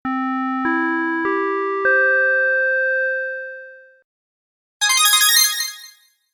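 Four-note rising announcement chime, the Japanese 'pin-pon-pan-pon' tone played before a public-address or municipal broadcast. The notes come about half a second apart and each rings on, and the last fades out over about two seconds. About a second later comes a short, harsh jangle lasting about a second.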